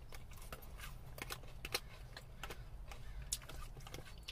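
Close-miked chewing of salad: a string of short, sharp crunches and mouth clicks, with the fork clinking in the salad bowl near the end, over a low steady hum.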